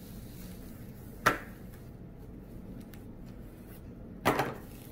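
Thin painted wooden birdhouse pieces clacking as they are set down on a tray: one sharp clack about a second in, then a quick cluster of clacks near the end.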